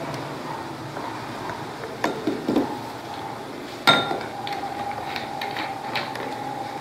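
Light plastic clicks and knocks as a plastic bottle and its screw cap are handled over glass beakers, with one sharp glass clink about four seconds in.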